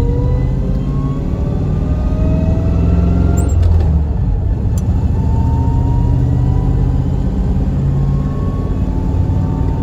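LS V8 and manual transmission of an LS-swapped Cadillac CTS pulling under acceleration, heard from inside the cabin: a low rumble under a whine that rises with speed and drops back as it shifts up, about four seconds in and again near the end. The transmission is loud, which the owner puts down to its being a truck transmission.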